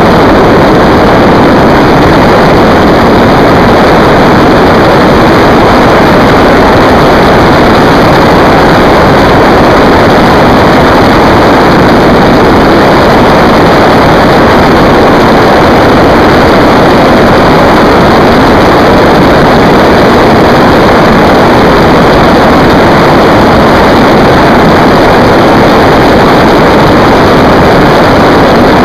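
Yamaha YZF1000R Thunderace inline-four sport bike held at high speed: a loud, steady rush of wind and engine noise, with no gear changes or breaks.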